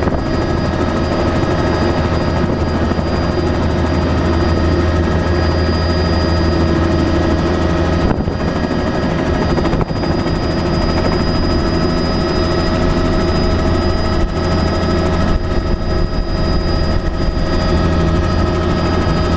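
Helicopter engine and rotor running steadily, heard inside the cabin, as it takes off: a constant high whine over a loud low drone.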